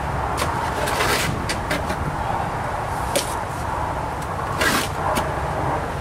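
Wet cement mortar being scooped and dropped in lumps onto a concrete slab, with short scrapes and knocks, the strongest about a second in and again near the end. A steady low rumble runs underneath.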